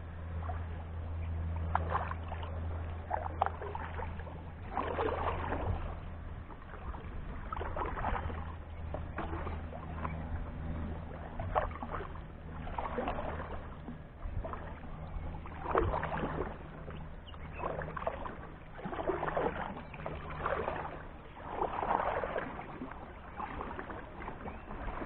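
Kayak paddle strokes in the water: a swishing splash every couple of seconds as the blades dip and pull, over a steady low hum that fades after the first several seconds.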